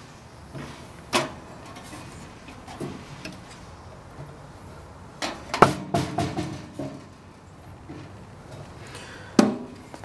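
Toaster oven being handled: a few knocks and rattles of metal, loudest about halfway through as a circuit board is set on the oven's wire rack, then a sharp knock near the end as the glass door is shut.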